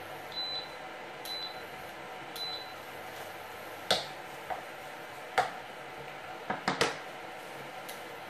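Wooden spoon stirring food in a frying pan, knocking against the pan with a handful of sharp clicks in the second half, several in quick succession near the end, over a faint steady hiss.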